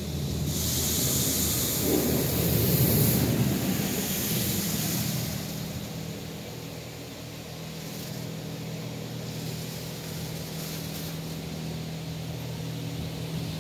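The high-pressure water jets of a PDQ LaserWash 360 Plus touchless car wash spraying the car, heard from inside the cabin: a steady hiss and spatter of water on the body and glass over a low, steady hum. The spray is loudest in the first few seconds, then eases.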